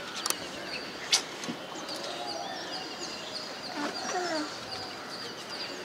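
Quiet outdoor ambience with faint bird chirps and a thin steady high tone, broken by two short sharp clicks about a second apart near the start.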